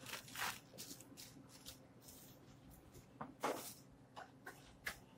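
A thin plastic deli bag rustling and crinkling in a few short bursts as food is handled, over a steady low background hum.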